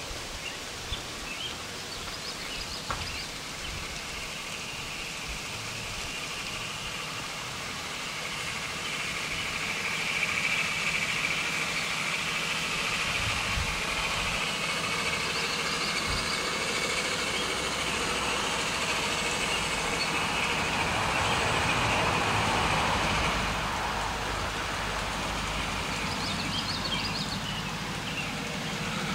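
Large-scale model diesel locomotive hauling a long train of tank cars around the track. It runs steadily, grows louder about a third of the way in as it passes close by, and eases off near the end.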